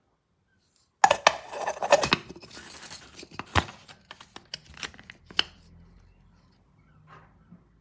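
Handling noise: a loud rustling, tearing burst starting about a second in, then scattered sharp clicks and taps that thin out and fade.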